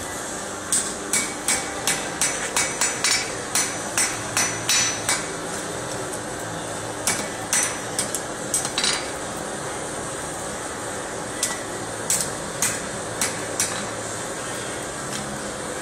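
Blacksmith's hand hammer striking red-hot wrought iron on an anvil, shaping the tines of a sunburst finial. A quick run of ringing blows comes at about three a second, then a pause and a shorter run, then a few spaced blows. A steady hum sits underneath.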